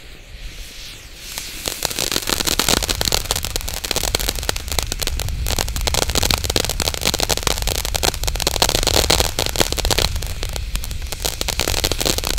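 Phantom Fireworks Dragon's Tears ground fountain burning, a hiss of spraying sparks with dense, rapid crackling. It grows much louder about a second and a half in and stays loud.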